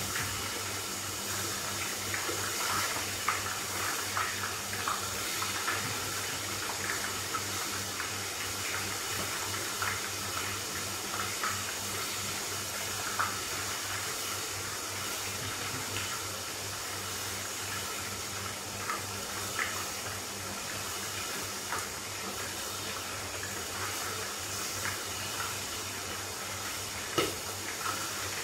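Chicken frying in hot oil under the lid of a frying pan on a turned-down gas flame: a steady sizzle with scattered small pops and crackles, one sharper pop near the end. A low steady hum sits underneath.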